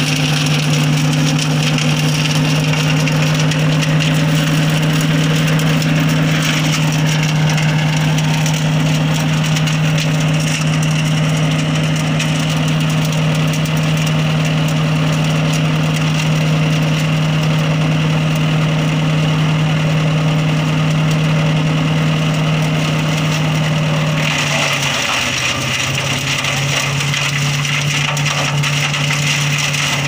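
Rico RI6060 wood chipper's 6.5 hp engine running at a steady speed. About 25 seconds in, the engine note dips briefly, as under load, then recovers, and a harsher chipping noise of branches being shredded sets in.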